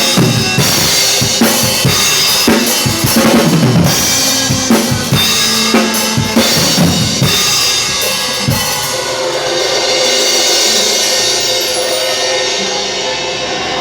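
Drum kit played to a worship song, with busy kick, snare and cymbal strokes over sustained accompanying music. The drumming stops about nine seconds in, leaving the cymbals and music ringing out as the song ends.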